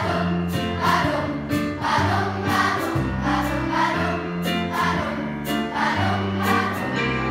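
Large children's choir singing together over an accompaniment with held bass notes and a regular beat about twice a second.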